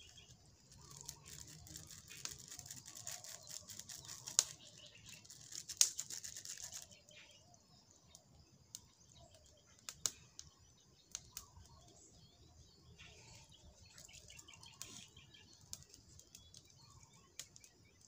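Small twig fire crackling, with scattered sharp pops, the loudest about four and six seconds in, over a soft hiss that dies down after about seven seconds.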